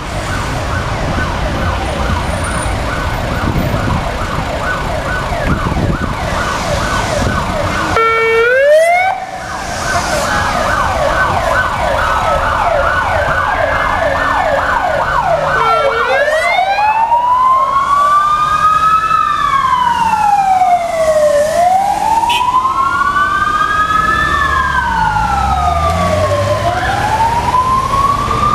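Emergency sirens of a Volvo fire engine, a police car and an ambulance sounding together. A fast yelp runs for about the first half, with a short steady blast and a rising whoop about eight seconds in. From about halfway several slow wails rise and fall over each other, with traffic rumbling underneath.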